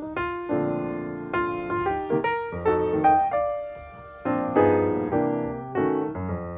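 Background music: a gentle piano piece, notes and chords struck one after another and left to fade.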